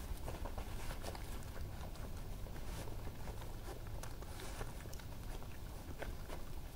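Eurasian badgers foraging on grass: scattered light footfalls and small clicks and crunches of eating.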